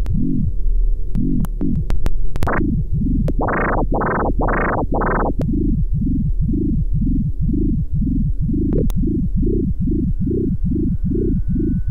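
Experimental industrial ambient electronic music: a pulsing synthesizer whose notes swell and fade one after another, four brighter, higher-reaching swells in the first half, then a lower, steady throb that quickens toward the end.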